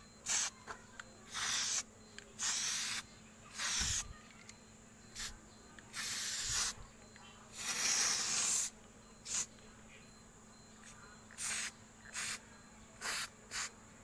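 Aerosol spray-paint can spraying in a dozen or so short hissing bursts, each a fraction of a second to about a second long, with brief pauses between them as paint is laid on.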